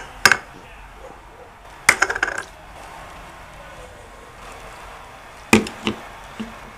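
Hard plastic sippy cup and a small plastic cup clacking and being set down on a wooden tabletop. There is a sharp knock just after the start, a rattle of light knocks about two seconds in, and a couple more knocks near the end.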